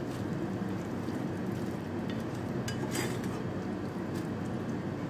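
A serving spoon scraping and knocking against a metal pan and dish as cooked minced beef is spooned out, giving a few light clinks about two to four seconds in over a steady background noise.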